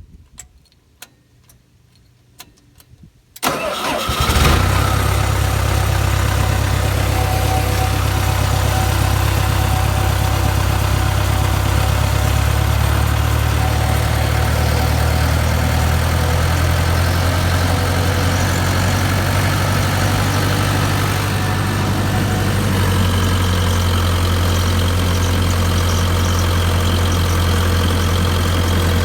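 A few light clicks, then the engine of a Morbark 290 wood chipper cranks and starts about three and a half seconds in. It settles at once into a steady idle.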